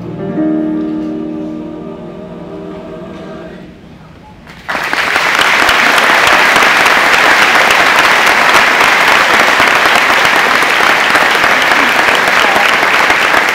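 A choir with piano holds its final chord, which fades away over about four seconds; then audience applause breaks out suddenly and loudly and keeps going steadily.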